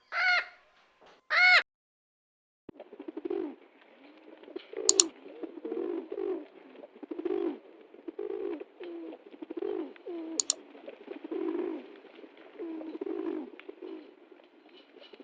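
Pigeons cooing, low calls repeated about once a second, with two sharp clicks about five and ten seconds in. The first second and a half holds a few short, high-pitched animal calls.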